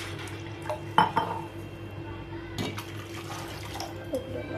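Metal clinking against an aluminium kadai of water and vegetables: a sharp, ringing clink about a second in, then two softer knocks, over a steady low hum.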